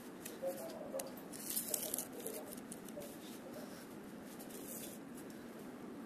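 Faint clicks and scuffs of wooden craft-stick pieces being handled and moved on a tabletop, with a short brushing scrape about a second and a half in, over a steady background hiss.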